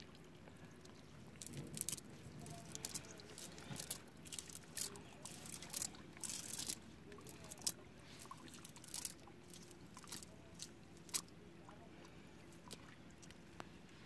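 Faint, irregular rustling, soft clicks and wet squishes of a nylon cast net being pulled and handled on wet mud as small fish are picked out of its mesh. The sounds thin out near the end.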